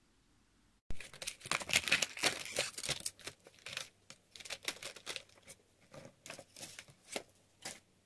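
Toy packaging being torn open and crinkled by hand. It starts suddenly about a second in with dense tearing and crackling, then thins out to scattered rustles and clicks.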